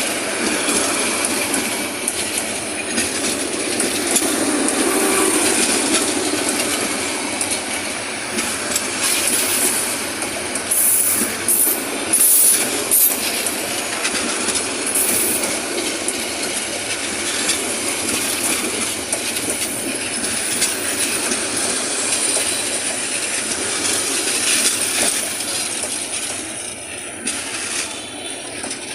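Chattala Express passenger train running on the rails: steady rumble and wheel noise, with brief high-pitched squeals about 11 to 15 seconds in, fading somewhat near the end.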